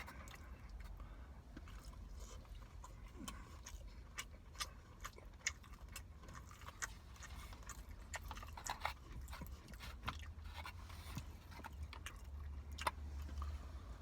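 Close-up eating sounds of a person chewing chicken biryani: irregular clicks and smacks, several a second, over a low steady hum.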